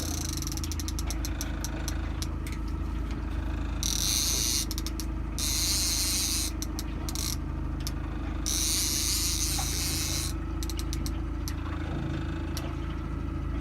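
Boat engine running steadily at trolling speed, under runs of rapid clicking and bursts of raspy hiss from a fishing reel as a hooked king salmon fights on the line.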